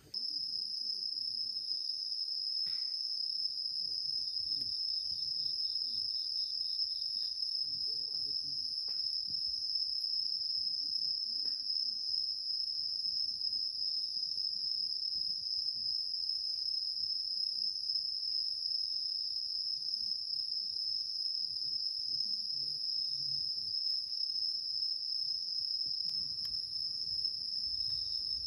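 Chorus of insects singing in one steady, high-pitched tone, with faint crackles from a wood fire burning in a fire stand.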